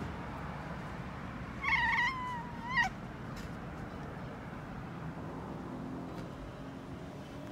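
A domestic cat meowing once: a single call of just over a second, loudest at the start, with a short rise in pitch at the end.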